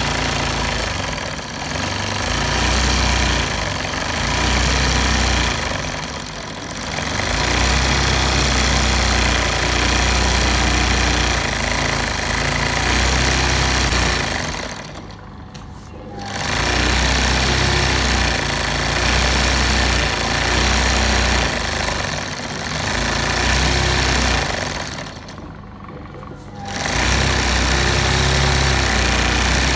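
Electric sewing machine doing hand-guided embroidery through hooped fabric: a steady, fast needle clatter over a motor hum. It eases off a few times and stops for about a second twice, once about halfway and once later on.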